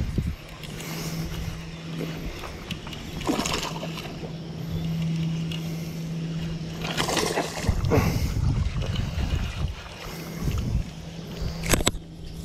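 Baitcasting reel whirring steadily as a hooked fish is cranked in, the whir pausing twice, with a few short splashes from the fish at the surface and a sharp click near the end.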